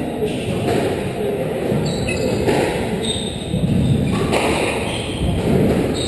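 Squash rally: the ball struck by rackets and thudding against the court walls, echoing in a large hall.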